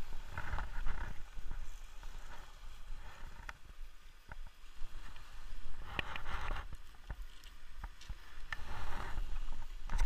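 Small waves surging and splashing against boulders three times: about half a second in, around six seconds, and near the end. Under them runs a steady low wind rumble on the microphone, with a few sharp clicks.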